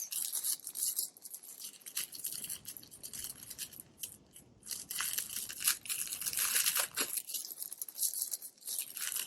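Thin plastic packaging crinkling and rustling as it is handled and pulled open, in two stretches with a brief lull about four seconds in.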